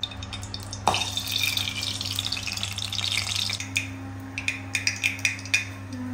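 Mustard seeds dropped into hot oil in an aluminium kadai about a second in, sizzling with a steady hiss, then from about halfway crackling with a run of sharp pops as they begin to splutter: the tempering stage, with the oil hot enough.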